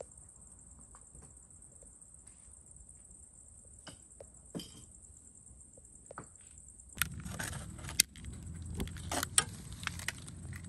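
Light clinks and knocks, as of kitchenware being handled: a few sparse taps at first, then busier and louder from about seven seconds in, when a low rumble comes in too. A faint steady high whine runs underneath.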